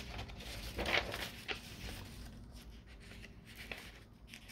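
Quiet room tone with a steady low hum and a few faint rustles and clicks, the most noticeable about a second in.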